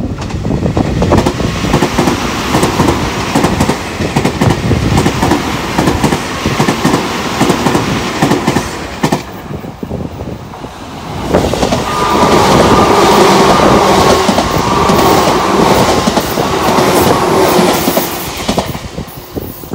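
Two electric commuter trains pass in turn at speed: first a Tobu 50000-series train runs by with its wheels clattering over the rail joints, then after a short lull a Tobu 10000-series train passes close, louder, with a steady tone over its wheel and running noise.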